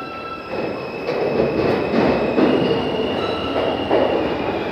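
Subway train running through the station: wheel rumble that grows louder about half a second in, with several thin, steady high-pitched squeals of the wheels on the rails.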